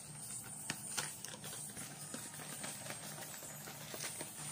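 Scattered small clicks and taps at irregular intervals, from objects being handled close to the microphone, over a faint low hum.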